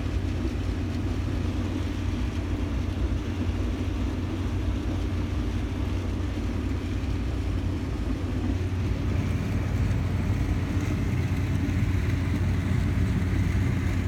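Combine harvester running steadily while harvesting corn: a continuous low mechanical drone that grows a little louder and brighter about two-thirds of the way through.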